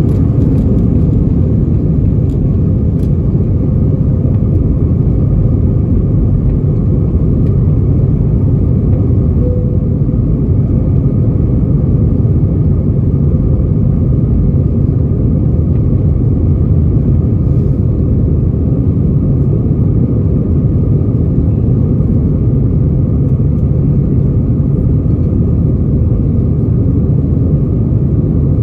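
Inside an Airbus A320's cabin: a loud, steady rumble of the jet engines and air noise, deep and unchanging, with a faint steady hum over it.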